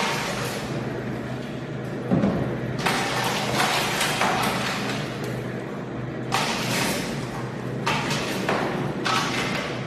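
Stainless-steel passion fruit juicing machine running with a steady hum. Surges of noise come as whole passion fruit are tipped into its hopper and broken open, with a thud about two seconds in.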